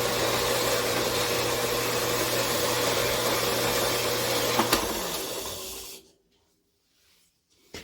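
A 4x6 horizontal metal-cutting bandsaw runs steadily through a cut in metal stock. About three-quarters of the way in there is a click as it switches off, and the motor winds down to silence. A short metallic clink comes right at the end.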